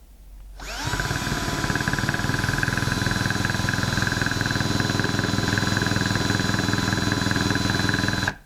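Electric drill or screwdriver running at full speed, winding up to a steady whine about half a second in and stopping abruptly near the end. It is driving a screw whose head strips.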